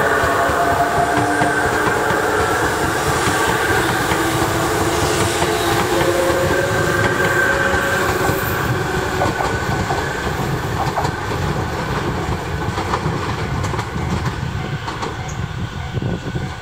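Tobu 100 series Spacia electric limited express running away over the station's points, its wheels clattering over rail joints under several steady whining tones. The noise fades slowly over the last half.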